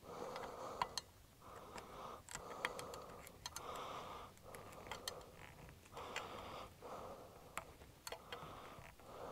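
Faint small clicks and scratches of plastic wire nuts being twisted onto electrical wires at a metal junction box, over a soft on-and-off rustle of handling.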